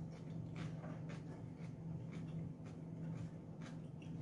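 Plastic spoons and forks lightly scraping and clicking against plastic food trays, in small irregular clicks, over a steady low hum.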